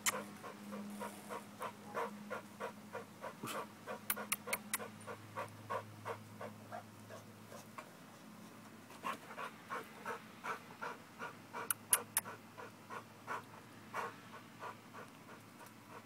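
American bulldog panting hard and fast, about three breaths a second, from the exertion of a workout; the dog is tired. The panting eases for a couple of seconds midway, and a few sharp clicks come through.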